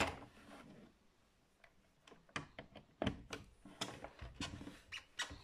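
Irregular clicks and knocks from an Oric-1 home computer's plastic case being handled and set in place, about nine sharp taps spread unevenly, the loudest right at the start.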